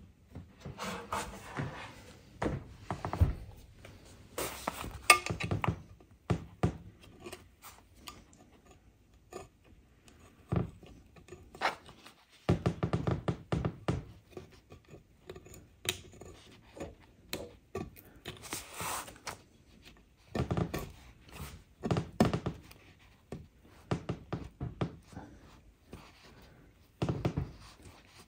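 Knife blade scraping and prying a sticker label off a glass drawer-insert panel, in irregular short scratchy strokes, with light knocks and clicks as the glass and tool shift on the board beneath.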